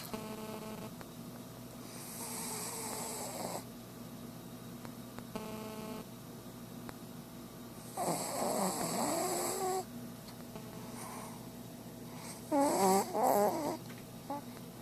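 Shih tzu dog snoring in her sleep: a string of snoring breaths a few seconds apart, some breathy and some with a rattling, wavering tone. The loudest snores come near the end.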